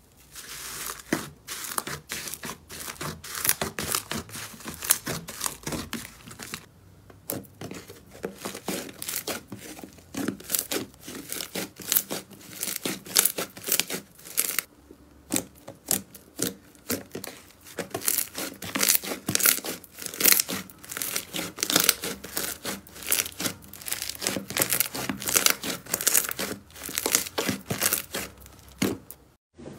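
Slime being stretched, pressed and kneaded by hand, making dense, irregular crackling and popping noises. The noises break off briefly twice.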